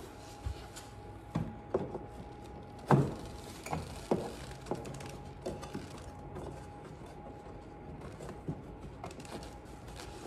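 A Joe Composites front splitter section knocking and clicking against a Porsche Cayman's front bumper as it is pushed up into place by hand. The knocks are irregular, the loudest about three seconds in, over a faint steady hum.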